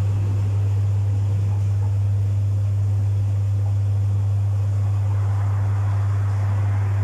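Domus 8 kg washing machine running mid-cycle: a steady, strong low hum with a wash of noise on top that grows louder about five seconds in.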